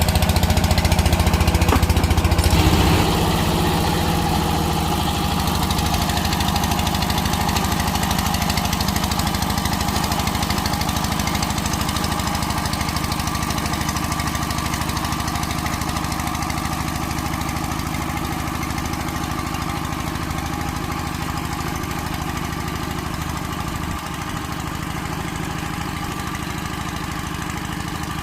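A walk-behind power tiller's single-cylinder diesel engine chugs steadily while tilling soil. It drops in loudness about three seconds in and then slowly fades.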